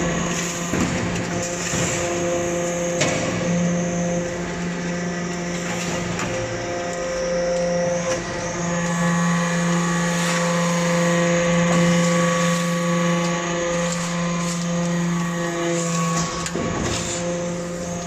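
Hydraulic metal-chip briquetting press and its chain chip conveyor running with a steady machine hum, while loose metal chips are shoveled in and scrape and clatter on the steel conveyor hopper.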